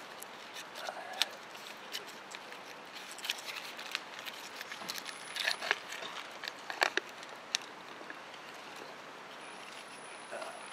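Rustling and scattered sharp clicks of someone rummaging to get food out, with a denser cluster of clicks about five to seven seconds in.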